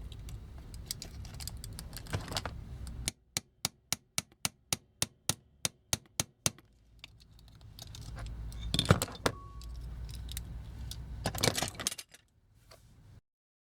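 Small clicks and rattles of toy parts and tools being handled, including a run of about a dozen evenly spaced sharp clicks, about four a second, and a louder knock near the middle.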